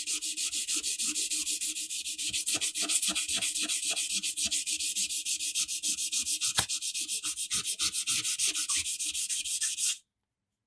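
Hand sanding a metal horn part with sandpaper in quick, even back-and-forth strokes, about six or seven a second; the sanding stops abruptly near the end.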